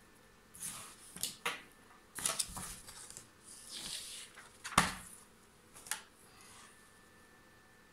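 Handling noise: a run of short rustles and knocks as the camera is moved over the drawing and its paper cover sheet, with one sharp knock about five seconds in.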